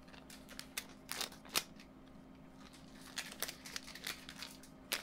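Thin clear plastic bag crinkling as it is handled and opened by hand, in a string of short crackles, the sharpest about a second and a half in.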